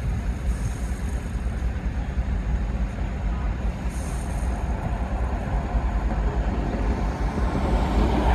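Diesel switching locomotives running at a distance: a steady low engine rumble.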